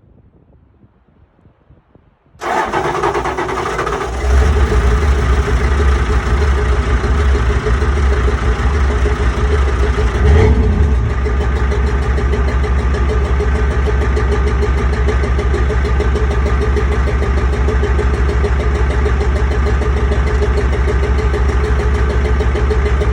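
7.3 IDI diesel V8 cranking and starting about two seconds in, then idling steadily with a brief rise around ten seconds in; it makes an exhaust noise its owner calls weird.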